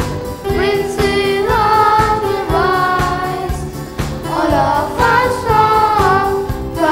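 A song: voices singing a melody over instrumental accompaniment with a held drone and a steady low beat.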